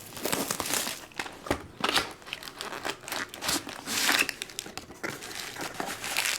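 Trading card pack wrappers being torn open and crinkled in the hands, an irregular run of crackles and rustles.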